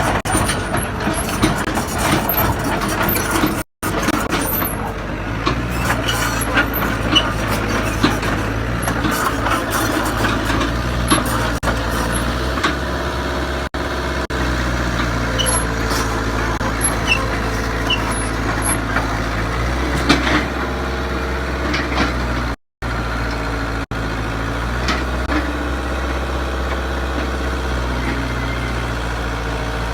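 Excavator's heavy diesel engine running steadily as the machine is loaded for transport, with scattered metallic clanks and short hisses over it. The sound cuts out very briefly twice.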